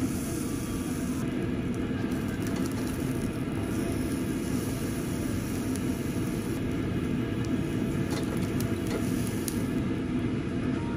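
Steady low rush of air drawn through a yakiniku table grill's built-in exhaust, with faint crackling as a thick slab of beef sears over charcoal on the wire mesh.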